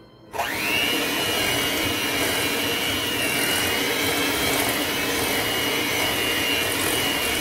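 Electric hand mixer switched on, its motor spinning up quickly and then running steadily with a high whine as its beaters cream butter and sugar in a stainless steel bowl.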